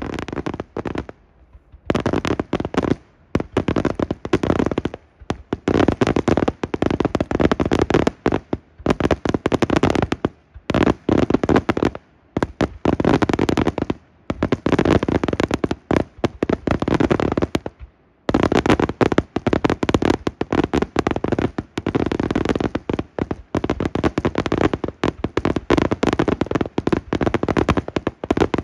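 Daytime aerial fireworks shells bursting into dense volleys of many small bangs. The volleys come in runs of about one to two seconds with short gaps between them.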